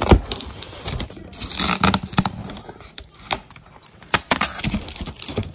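Cardboard shipping box being opened by hand, its sticky packing tape and flaps tearing and scraping in a string of sharp crackles and clicks.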